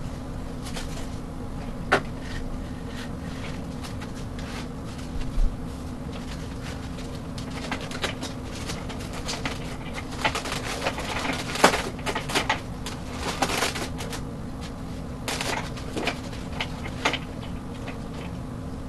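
Parts of a foam RC F-16 jet being handled and pressed together on a table: scattered clicks, taps and rustles, busiest in the middle with one sharp knock, over a steady low hum.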